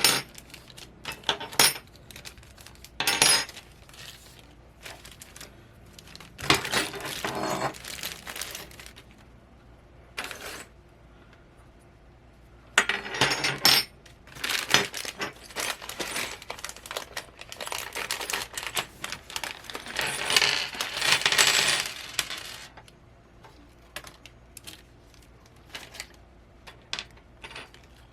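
Metal parts of a VESA adapter mount kit clinking and clattering as they are handled and set down, in scattered bursts with sharp knocks between.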